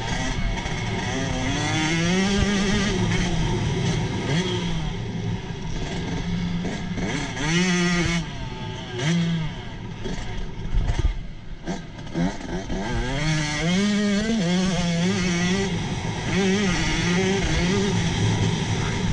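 Motocross bike engine heard from on board, revving up and dropping back over and over as the rider opens and closes the throttle through the corners and straights. The engine goes briefly quieter about halfway through, then picks up again.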